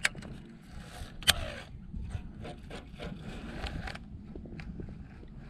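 Fishing reel and tackle being handled, with small mechanical clicks and scraping and two sharp clicks, one at the start and one just over a second in.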